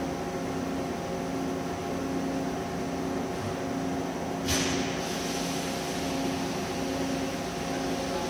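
Steady hum of a CNC vertical lathe standing idle under power, holding several steady tones. About four and a half seconds in comes a sudden short hiss that fades over about a second.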